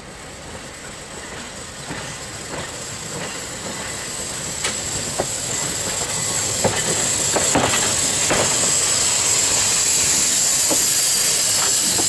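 Vintage open crossbench electric tramcar running over pointwork and growing louder as it nears, its wheels clicking irregularly over the rail joints and points, with a steady hiss that builds up.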